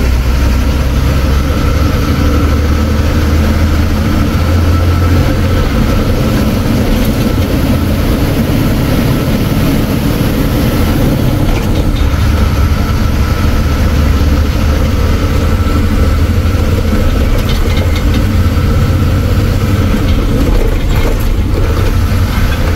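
Ashok Leyland truck's diesel engine running under way, heard from inside the cab: a loud, steady low drone with a thin steady whine above it.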